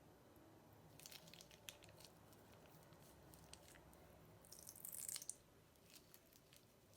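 Faint crinkling and crackling as slime and its ingredients are handled: a scatter of small clicks about a second in and a denser crinkly burst a little past the middle.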